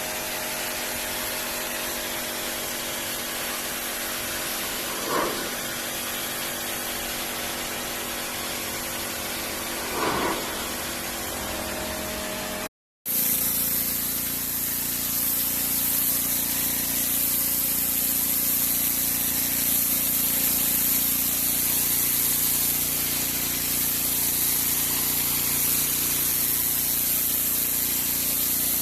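Pressure washer running and spraying: a steady hiss of the water jet over the steady hum of the machine's pump, with a few brief surges. It drops out for a moment about halfway through, then resumes with a harsher, hissier spray.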